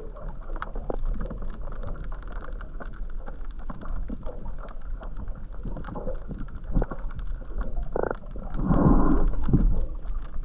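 Underwater sound picked up by a camera below the surface: a muffled, rumbling water noise with many small clicks and crackles, and a louder rush of water near the end.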